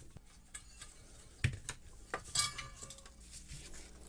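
Faint handling clinks and knocks of the belt sander's metal and plastic parts as its top housing is lifted off: one sharp click about a second and a half in, and a short ringing clink just after two seconds.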